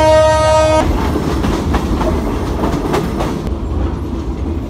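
Train horn sounding a steady chord that cuts off about a second in, followed by the rumble and clatter of the train running on the rails.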